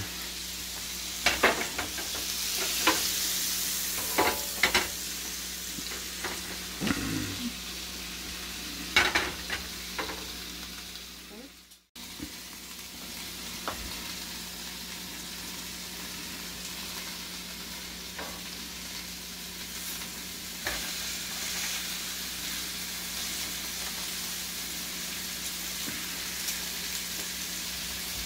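Margarine sizzling as it melts in a hot grill pan, with a few short knocks and clatters of cookware in the first ten seconds. The sizzle breaks off briefly about twelve seconds in, then carries on steadily.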